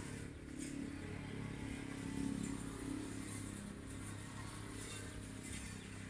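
A small engine running steadily, a low even hum.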